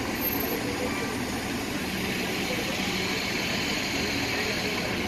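Steady street din of traffic, with vehicle engines running and idling.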